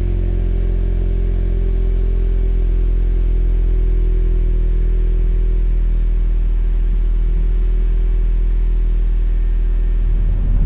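2017 Honda Civic Si's 1.5-litre turbocharged four-cylinder idling steadily through a Remark cat-back exhaust, heard at the tailpipes as a low, even drone.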